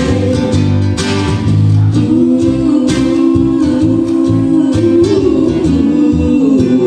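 A pop love song with a singing voice and guitar accompaniment, played in the instrumental stretch between sung lines.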